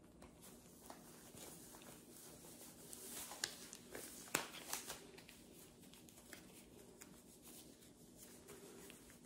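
Nitrile gloves being pulled on over knit cotton gloves: faint rustling and rubbing of the thin rubber, with a few sharp clicks near the middle.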